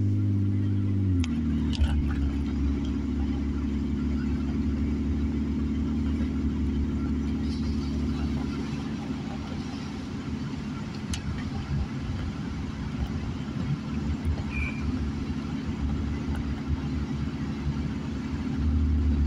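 Car engine and tyres on wet pavement, heard from inside the cabin while driving: a steady low hum whose pitch drops about a second in, with a few faint clicks.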